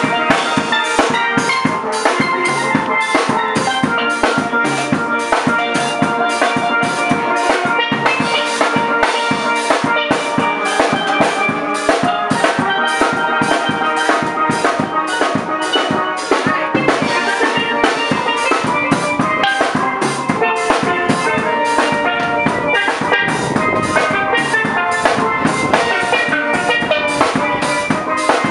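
Caribbean steel drum band music: steelpans playing a melody over a steady drum-kit beat.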